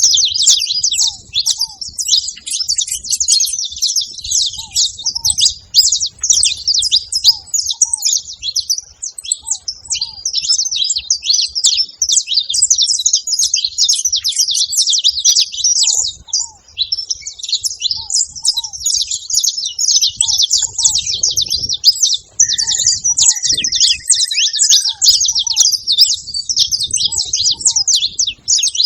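Saffron finch singing in a dense, unbroken run of high chirps and twitters, over the low, soft paired cooing of ground doves repeating every second or two.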